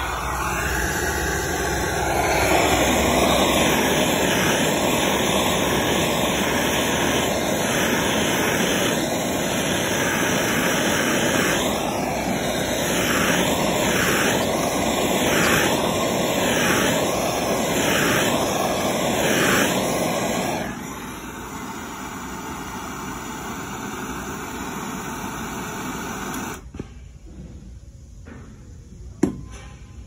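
Steady rushing blast of a heat tool playing on a solder-seal wire connector, shrinking its tubing and melting the solder ring; its pitch wavers as the heat is moved about. It cuts off sharply about two-thirds of the way through, leaving a fainter hiss, and a single click sounds near the end.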